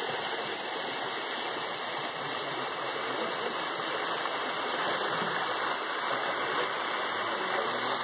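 Waterfall water rushing and splashing into a pool, a steady even rush with no change.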